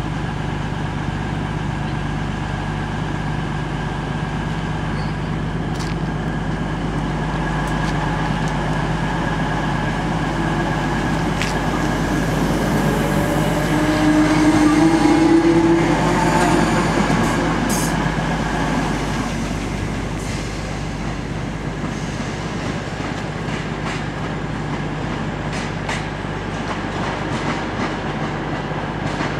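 British Rail Class 319 electric multiple unit pulling out and passing close by, its motors whining up in pitch as it goes past, loudest about halfway through, with a few wheel clicks over rail joints, then fading as it draws away over a steady hum.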